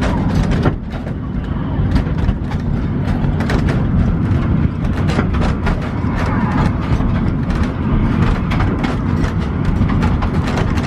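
Narrow-gauge passenger train running along the track: a steady rumble with constant clattering and rattling from the car.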